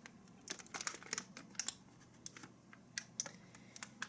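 Scattered light clicks and taps, in small irregular clusters, from a small vinyl figure and its box being handled.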